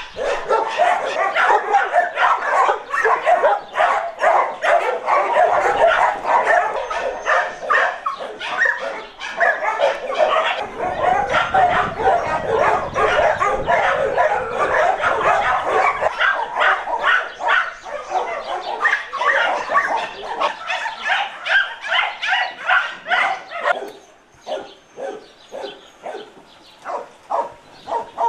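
Many dogs barking at once in a dense, overlapping chorus of barks and yips. About 24 seconds in it thins out to fewer, separate, quieter barks.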